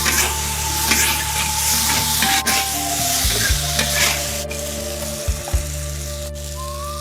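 Food sizzling and being stir-fried in a hot wok, with a spatula scraping and clicking against the pan. A steady low hum runs underneath.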